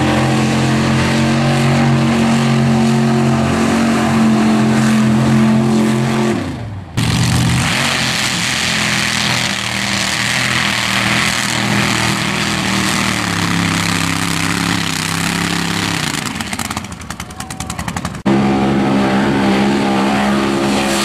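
Engine of a modified 4x4 mud bog truck held at high, steady revs as it drives wide open through the mud pit. It cuts off abruptly about seven seconds in, giving way to a stretch of engine with a loud rushing noise over it. A second abrupt cut near the end brings back high, steady engine revs.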